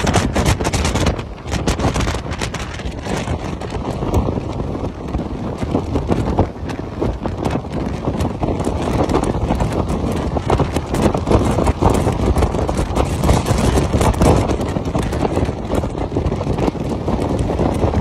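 Storm-force wind buffeting the microphone: loud, continuous wind noise with rapid, uneven gusting flutter.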